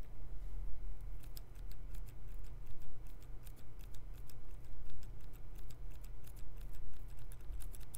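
Hairdressing scissors snipping close to the microphone, several crisp snips a second in irregular runs.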